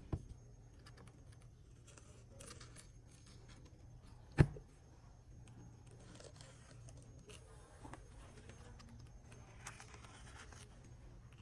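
Faint handling sounds of a phone on a silicone repair mat: small taps and rustles, with one sharp knock about four seconds in, as when the phone is set down.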